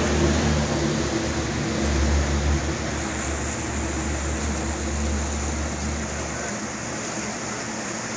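Whitewater river rapids rushing steadily, with a low rumble under it that fades out about six seconds in.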